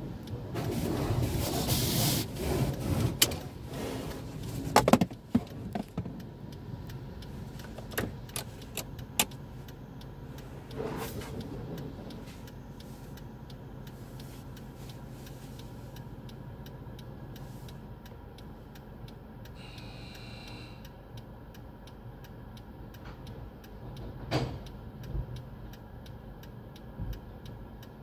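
Belanger tunnel car wash heard from inside the car: water spray and cloth wash curtains working over the car for the first few seconds, with knocks, then a steady low hum of the wash machinery and idling car with occasional knocks. A brief high tone sounds about twenty seconds in.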